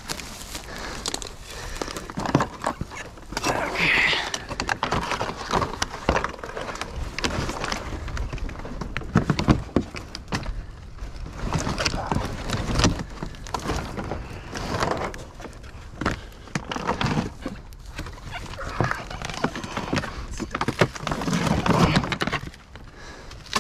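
Irregular footsteps, knocks and rustling as people move about and handle debris, with short stretches of indistinct low voices.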